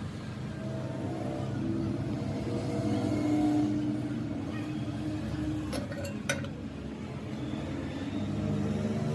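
A machine motor running with a steady hum whose pitch shifts slightly, with two short sharp metallic clicks about six seconds in.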